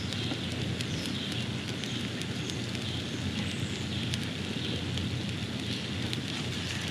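Wood fire burning in a metal fire pit, crackling with scattered small pops over a steady low rumble.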